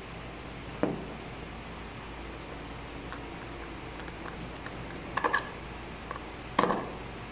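Screwdriver and plastic lamp receptacle being handled as a wire is fastened to its terminal screw: a few sharp clicks and knocks, the loudest about a second in and near the end, with faint ticks between.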